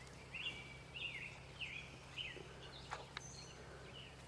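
Faint bird calls: a string of short chirps, each sliding down in pitch, about two a second, over a low steady hum.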